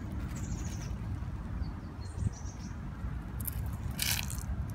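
Outdoor background: a steady low rumble, with a few short, faint high chirps in the first half and a brief rustle near the end.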